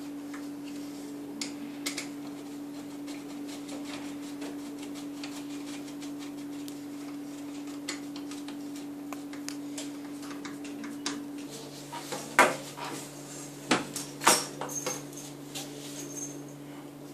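Light metallic clicks and rattles of a baby cradle's metal tube frame being handled and a bolt turned through it with a screwdriver, with three louder sharp metal knocks late on. A steady low hum runs underneath.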